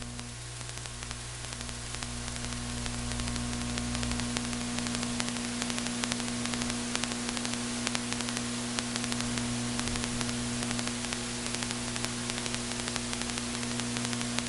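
Steady electrical hiss with a low mains hum from an open audio line, with no voice or engine on it.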